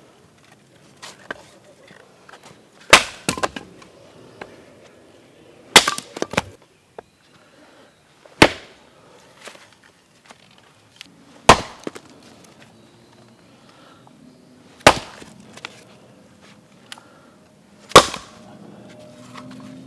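Gränsfors Bruk Wildlife hatchet chopping firewood: six sharp, loud strikes about three seconds apart, some followed by a few smaller knocks and clatters of wood.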